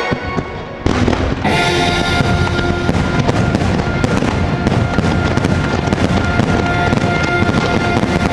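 Fireworks going off in a dense, rapid barrage of bangs and crackles over orchestral show music, starting abruptly about a second in after a brief lull.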